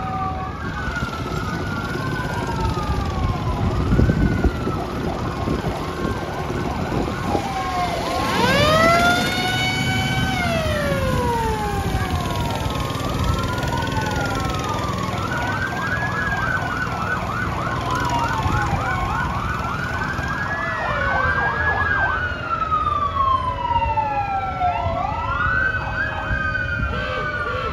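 Several emergency-vehicle sirens sounding at once, wailing up and down in overlapping sweeps. A louder siren rises about eight seconds in, and there is a stretch of rapid yelping a little past the middle.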